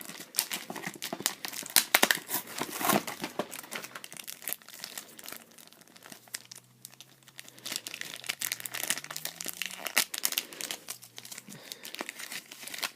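Plastic toy packaging being handled and opened: a steady stream of crinkling and rustling crackles, with some tearing.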